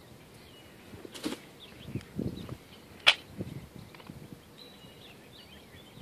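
Small birds chirping in short high notes, with a few soft rustles and thuds of clothing being handled and one sharp click about three seconds in.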